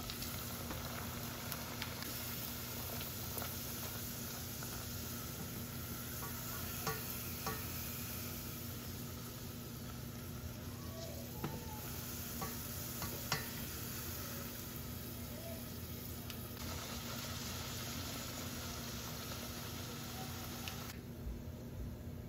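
Palak poori deep-frying in hot oil in a saucepan: a steady sizzle, with a few light clicks around the middle. The sizzle drops off near the end as the poori comes out of the oil.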